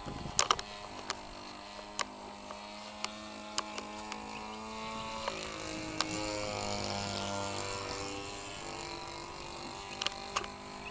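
Giant-scale RC airplane's converted 25cc string-trimmer gas engine running in flight, a steady drone whose pitch slides down and then back up about halfway through. Scattered sharp clicks sound over it.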